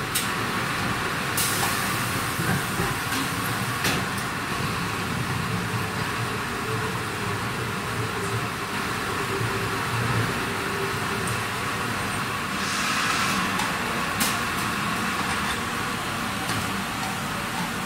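Five-station 5-gallon bottled-water filling machine running: a steady rush of machine and water noise, broken by a few sharp clicks and a short hiss about thirteen seconds in.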